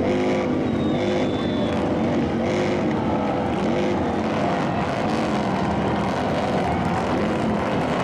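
Football crowd and sideline players shouting and cheering as a kickoff is set up, many voices overlapping, over a steady low rumble.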